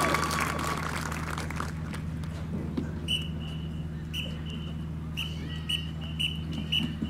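Crowd applause fading out over the first couple of seconds, then a quiet lull with a steady low hum and a run of short, high, repeated chirps from a bird in the last few seconds.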